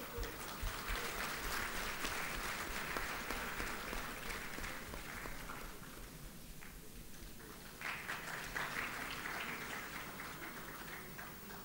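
Audience applauding in two rounds: the first fades after about five seconds, and a second starts suddenly about eight seconds in and tapers off near the end.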